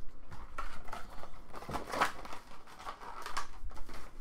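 Foil-wrapped trading card packs crinkling as they are handled and stacked, with a few light knocks as packs and the cardboard box are set down and moved.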